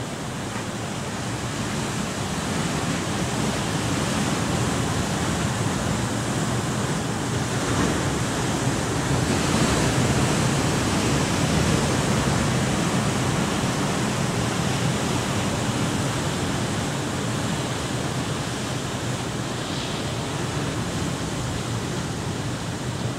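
Sea surf breaking on rocks: a steady rush of waves that builds to its loudest around the middle and eases off toward the end.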